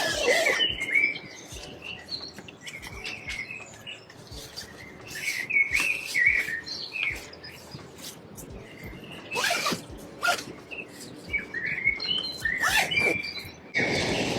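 Small birds chirping and twittering in short repeated calls, with scattered sharp clicks and a few louder knocks.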